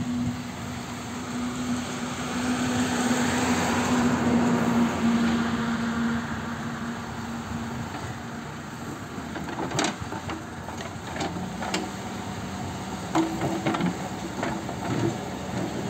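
JCB 3DX backhoe loader's diesel engine running under hydraulic load as the backhoe arm digs, growing louder for a few seconds near the start. A run of sharp clanks and knocks, metal and earth, comes through the second half.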